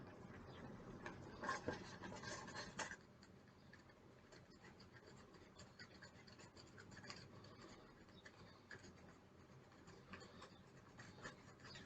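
Faint scratching of a scratch-off card's coating, with a run of quick strokes about one to three seconds in, then occasional light scratches and ticks.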